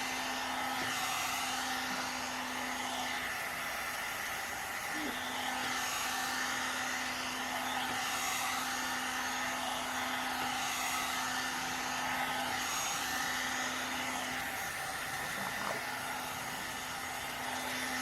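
One-step hair dryer and styler (hot-air brush) blowing steadily, its motor holding one steady hum while the air noise swells and fades gently as it is drawn through the hair.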